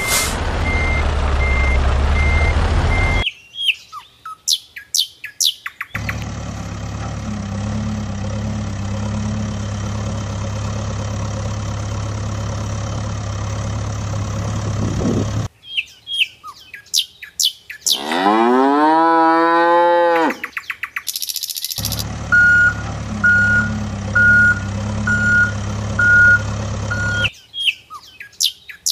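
Dubbed sound effects: a steady heavy-vehicle engine running, broken by three spells of bird chirping, one long cow moo that rises and falls about two-thirds in, and a run of reversing beeps, about two a second, near the end.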